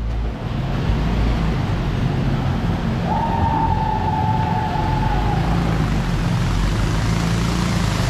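Motorcycle engine running steadily under way, with road and wind noise. About three seconds in, a steady high tone joins it for about two seconds.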